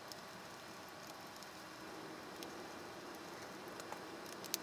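Quiet handling of a plastic computer mouse being put back together: faint hiss with a few small clicks, and one sharper plastic click near the end.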